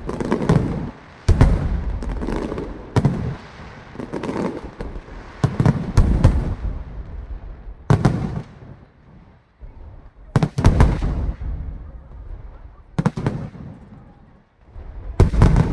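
Aerial fireworks bursting overhead: a series of sharp booms one to two seconds apart, each trailing off in a rumbling echo, with a brief lull about two-thirds of the way through.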